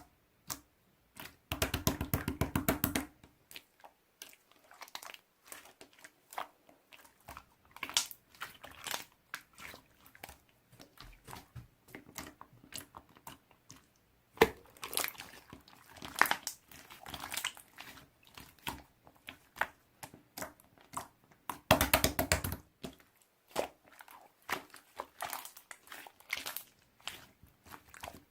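Close-up crackling and squishing of a small squishy 'cola ball' being squeezed and worked by hand, with irregular clicks throughout and louder bursts of rapid crackling near the start and again past the middle.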